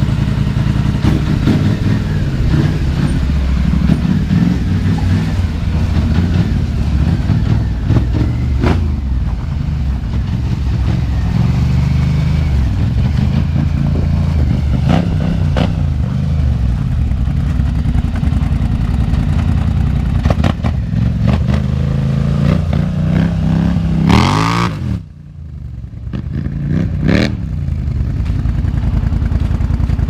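Polaris Scrambler XP 1000 ATV's twin-cylinder engine through an RJWC aftermarket exhaust, running and revving as the quad is ridden. Near the end it revs up with a sharply rising pitch, drops away suddenly, then revs again.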